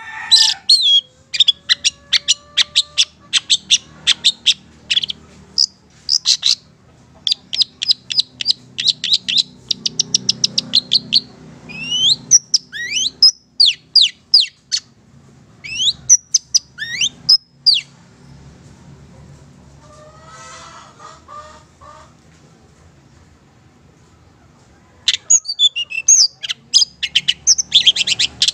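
A long-tailed shrike singing in loud, varied phrases: fast runs of short sharp notes at about four or five a second, then several rising whistled sweeps. After a lull it ends with a dense burst of mixed notes.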